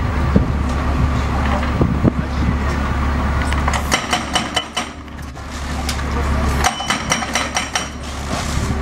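Heavy machinery at a demolition site: a steady low engine rumble, with two runs of rapid metallic clinking and clanking partway through.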